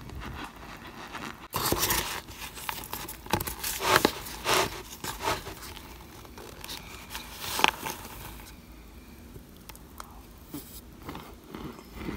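Metal spoon pressing into and crunching chunks of cornstarch in a foil pan: a run of uneven light crunches and squeaks starting about a second and a half in, with the sharpest crunches near the middle, growing quieter in the last few seconds.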